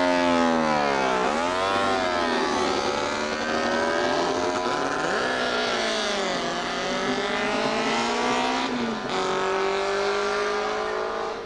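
Several classic racing motorcycle engines being push-started in turn, catching and revving. Their overlapping notes fall and climb in pitch, with one sharp dip about a second in.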